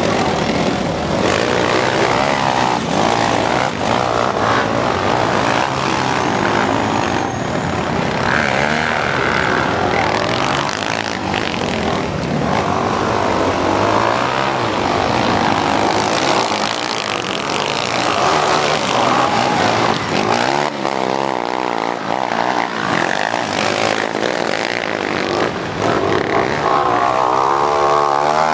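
Many dirt bike engines running together, revving up and down as the bikes climb a steep dirt slope under load.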